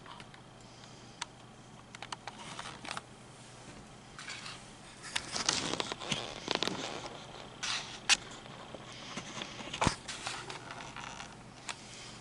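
Light rustling and scraping with scattered sharp clicks and taps, busiest about halfway through, with two sharper clicks near the end.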